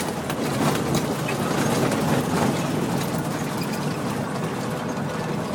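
Semi truck pulling empty B-train trailers over a rough gravel haul road: the diesel engine runs steadily under a constant road rumble, with scattered rattles and knocks.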